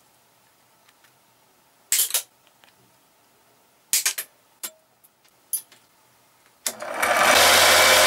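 Side cutters snap twice at the metal body of a small toggle switch, with a few softer clicks after. Near the end a small bench power tool starts and runs steadily and loudly.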